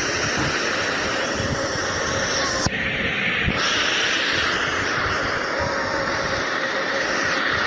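A 'sound of Neptune' space-audio track: a steady rushing, rumbling drone with faint held tones, its character changing abruptly about two and a half seconds in.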